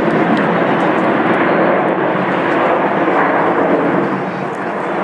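Jet noise from the Red Arrows' nine BAE Hawk T1 jets flying in formation overhead: a loud, steady rushing of their turbofan engines that dips briefly near the end.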